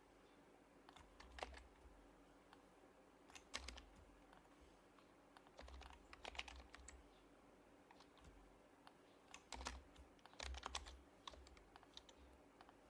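Faint typing on an HHKB Professional Hybrid Type-S keyboard with silenced Topre keys: short bursts of several keystrokes with pauses between.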